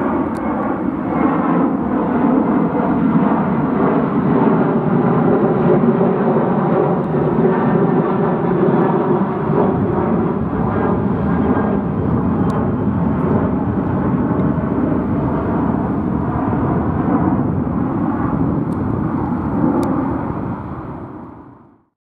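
Boeing 737-800's CFM56-7B turbofan engines climbing out after takeoff: a steady, loud jet roar with faint tones sliding slowly lower. It fades out near the end.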